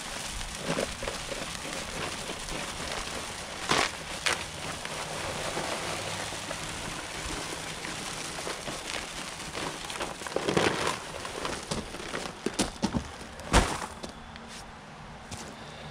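Dry concrete mix pouring from a paper sack into a plastic mixing tub with a steady hiss, broken by a few sharp knocks as the sack is shaken. The hiss stops about two seconds before the end, just after the loudest knock.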